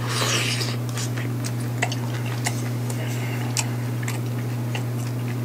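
Close-up mouth sounds of a person chewing steamed clams: scattered small wet clicks and smacks over a steady low hum.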